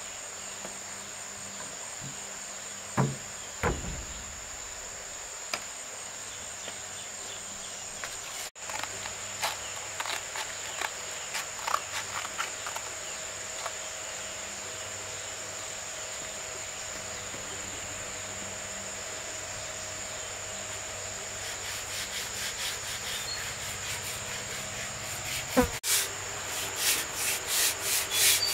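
Steady high insect trill, with a few sharp knocks on wood in the first seconds. Near the end, rapid, regular rubbing strokes of sanding on wood start up and grow louder.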